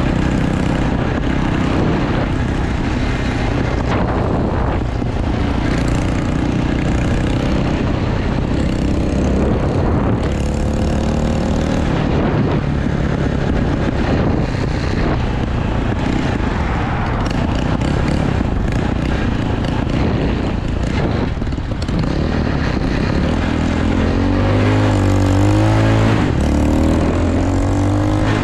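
Dirt bike engine running under way, with a steady rush of air-like noise over it. Near the end the engine pitch rises and falls several times as the throttle is worked.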